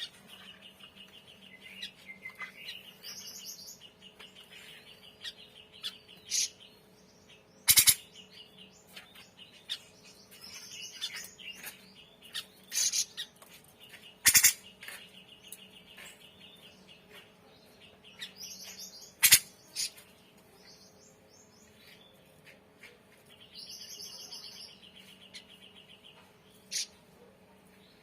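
Grey-cheeked bulbul (cucak jenggot) calling: repeated rapid, even trills a second or two long, mixed with short higher chirps, broken by three loud sharp clicks.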